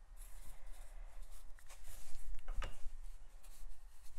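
Faint rubbing and rustling of hands pinching and pressing a soft clay coil into a ring on a paper sheet, in a few short scattered strokes, one a little louder about two and a half seconds in, over a low steady hum.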